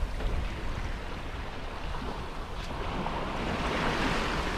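Bow wave rushing and hissing along the aluminium hull of a sailing yacht under way, with wind rumbling on the microphone. The rush of water grows louder about three seconds in.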